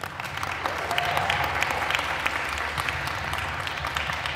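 Audience applauding, starting abruptly, holding steady, then beginning to ease near the end.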